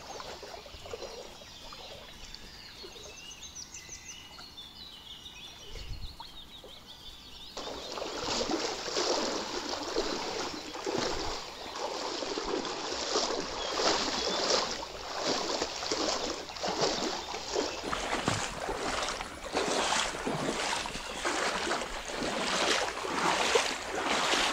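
Footsteps wading through shallow water over grass, splashing with each stride at about one step a second, starting about seven seconds in after a quiet stretch with faint chirping.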